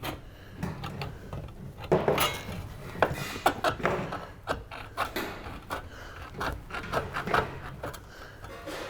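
Sheet-metal valley cleat being cut across with hand snips: a run of irregular snipping clicks and crunches as the blades close, mixed with the rattle of the metal being handled.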